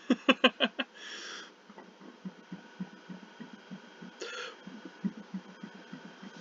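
A rapid-fire run of about five short, loud burps in the first second, swallowed air brought up on command. A brief breathy hiss follows, then a long string of faint low pulses at about three a second.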